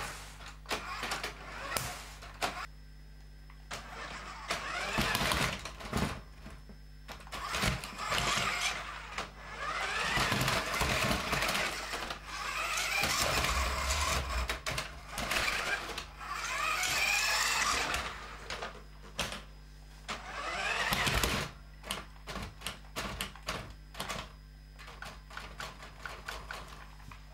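The electric motor and gearbox of a New Bright Ram RC truck whine in repeated bursts of one to a few seconds, rising in pitch as the truck speeds up. Scattered clicks and knocks come between the bursts as it clambers over blocks and cardboard tubes.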